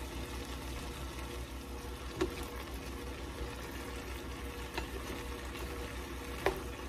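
Pork and mixed vegetables sizzling in a stainless steel pan as they are stirred with a spatula, with three light knocks of the spatula against the pan.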